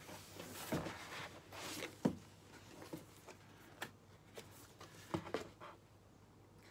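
Stiff printed cards and a cardboard box being handled: a few soft rustles and light taps, dying away near the end.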